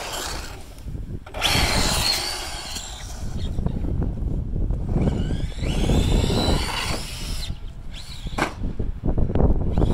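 Traxxas Slash 4x4 RC truck's electric motor and gears whining under throttle in two long bursts, the pitch rising and falling, with a short burst near the end. The owner thinks the motor needs realigning because of this noise.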